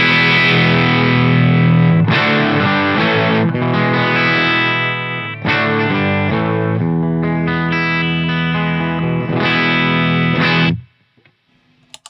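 Electric guitar with humbuckers through a Fish Circuits Model One overdrive pedal into a Fender Deluxe Reverb amp: overdriven chords and riffs with a few short breaks, a British-rock, Orange-amp-like sound heavy in bottom and low mids. The playing stops about a second before the end, and the pedal's footswitch clicks right at the end.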